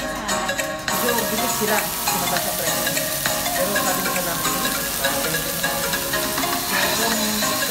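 Chicken pieces sizzling as they brown in a stainless steel pan, cooked without oil. The sizzle comes in about a second in, after a moment of background music.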